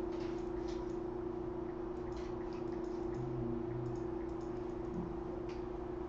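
A steady hum under faint, scattered computer mouse clicks and keyboard taps.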